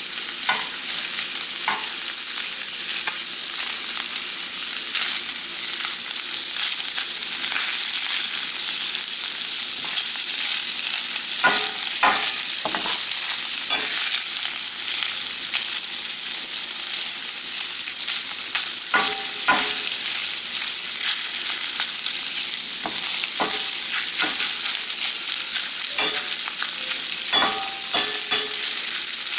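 Crumbled pan sausage and bacon frying in grease in a stainless steel skillet: a steady sizzle, with a metal spoon scraping and knocking against the pan now and then as the meat is stirred, in small clusters partway through and near the end.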